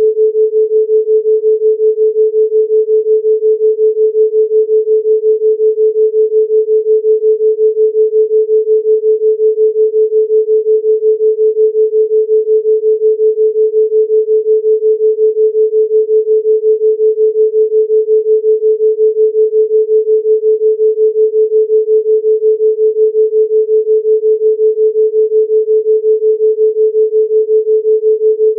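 Steady 432 Hz pure sine tone pulsing evenly several times a second: a theta-rate binaural beat.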